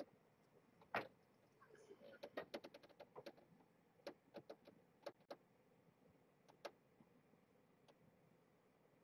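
Faint scattered clicks and ticks: a louder one about a second in, then a quick run of about eight, then a few more spread out, with small kittens being picked up and handled.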